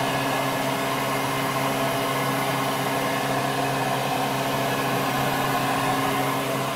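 Steady electrical hum, a low buzz at the mains pitch and its overtones, with an even hiss over it, from equipment in a building whose power is still on.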